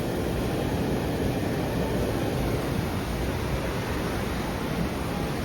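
Steady rushing of strong wind across the open deck and the microphone, even and unbroken throughout, with most of its weight in the low rumble.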